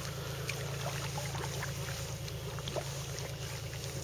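Kayak paddling on calm water: light splashes and drips from the double-bladed paddle, over a steady low hum.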